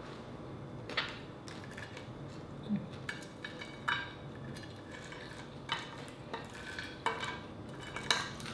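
Fingers picking at crisp dried fish and rice on a ceramic plate: scattered short crackles of the brittle fish breaking and light clicks against the plate, with quiet chewing.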